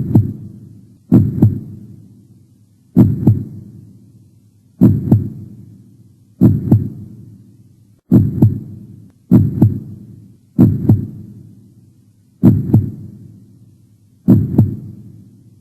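Heartbeat sound effect: low lub-dub double thumps, the two strokes of each beat about a third of a second apart, each beat fading in a short low rumble. The beats come about once every one and a half seconds, slow and a little uneven.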